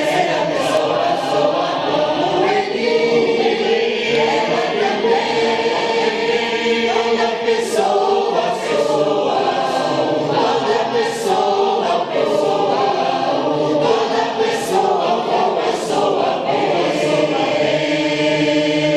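A church choir singing in parts, with sustained notes and crisp sibilant consonants.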